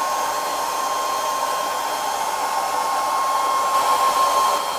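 Longer B1 30 W diode laser cutter running a multi-pass cut through thick wood: a steady rush of air from its air assist and fans, with a steady whine over it.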